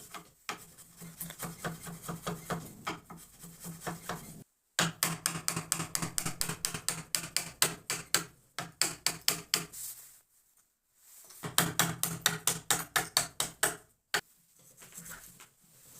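Rapid, evenly spaced strokes of a hand tool working wood, about five a second, in several runs broken by short pauses.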